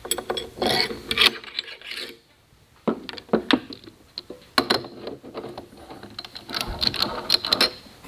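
Metal clicking and clattering as a scroll chuck is fitted and handled on a mini wood lathe's headstock spindle, in irregular clusters with a short pause about two seconds in.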